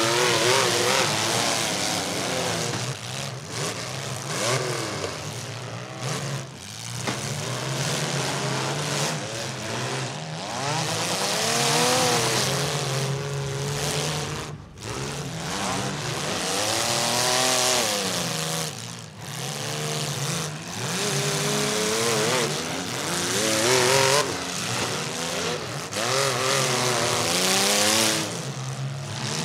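Several compact demolition derby cars' engines running hard at once, revving up and down over and over as they drive and ram in the mud.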